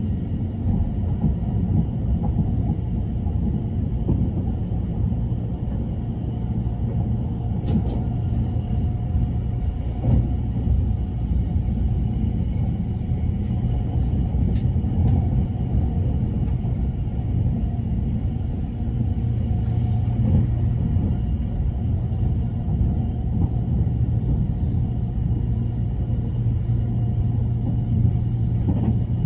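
E353-series limited express electric train running at speed, heard from inside the passenger car: a steady low running noise with a few faint clicks.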